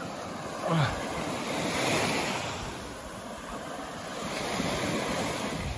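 Small Baltic Sea waves washing up and lapping on a sandy shore, swelling and easing, with wind on the microphone. A short call cuts in briefly about a second in.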